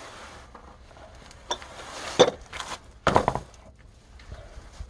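A handful of sharp metallic clinks and knocks of loose hardware and tools being moved about while searching for a washer. The loudest comes a little past two seconds in.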